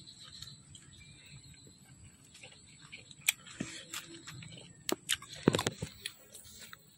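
Machete blade cutting grilled meat against a banana leaf: scattered sharp taps and scrapes, with a louder cluster of clicks about five seconds in.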